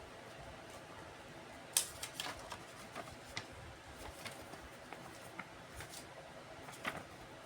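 Scattered light clicks and taps of plastic kit parts and packaging being handled, the sharpest about two seconds in and again near the end, over a faint steady hiss.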